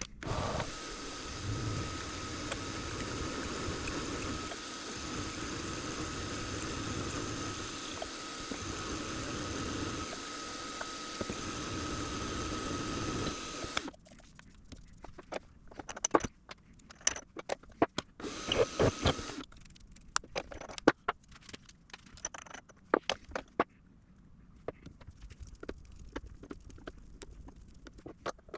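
Small benchtop machine tool motor running steadily with a constant whine, then switching off suddenly about halfway through. Sharp scattered clicks and taps of metal parts follow, with one brief scraping burst.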